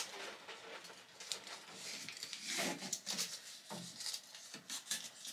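Faint rustling and rubbing of hands pressing painter's tape onto a linear rail carriage, with a few soft taps and crinkles scattered through.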